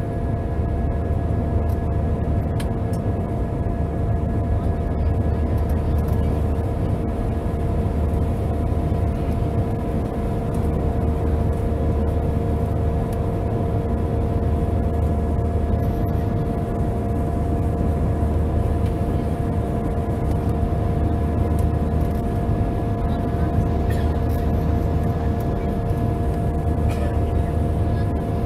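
Jet airliner engines droning steadily, heard from inside the cabin: a low rumble with a few steady whining tones on top.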